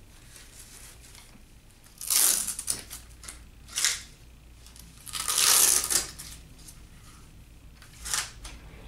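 Hook-and-loop straps on a hand splint being ripped open, four tearing sounds with the longest about halfway through.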